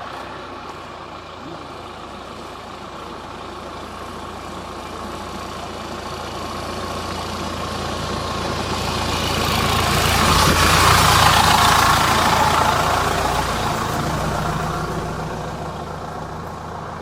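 An off-road vehicle's engine grows steadily louder, peaks about two-thirds of the way through, then fades.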